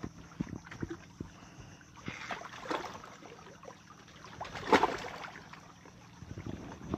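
Scattered light knocks, clicks and scrapes as a stick and conch shells are shifted about in the embers of a small fire, over faint water trickling among shore rocks and a faint low steady hum.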